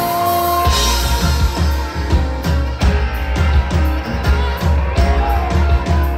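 Live rock band playing through the PA: electric bass, acoustic guitar and drum kit, with a cymbal wash about a second in and then a steady drum beat under a strong bass line.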